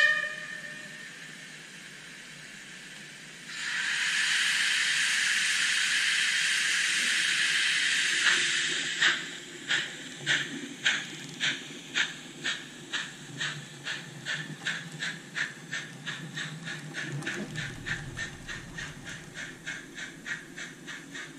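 N-scale model steam locomotive's sound module: a short whistle toot at the very start, a steady steam hiss from about three and a half seconds in, then chuffs starting about nine seconds in, gradually quickening as the engine pulls away.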